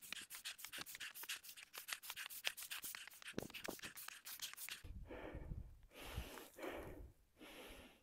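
Quick footsteps crunching on dry fallen leaves and rock on a steep trail. About halfway through they give way to a few long, heavy breaths from the climber, out of breath from the fast ascent.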